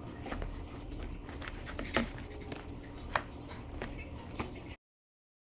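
Light handling sounds: a few sharp clicks and soft scrapes over a low steady hum, cutting off abruptly near the end.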